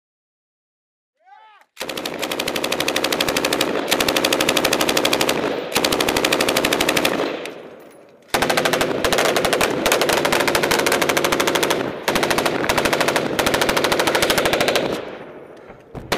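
Sustained automatic gunfire in long, very rapid strings of shots. It starts about two seconds in and fades away around the middle, then starts again a second later and runs on until it fades near the end.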